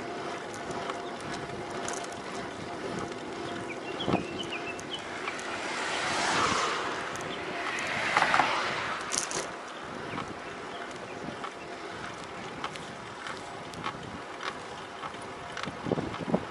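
Wind rushing over the action camera's microphone while a Cinelli road bike is ridden, with scattered short creaking ticks from the bike (ギシギシ, a creak whose cause is unknown). The rushing swells louder from about six to nine seconds in.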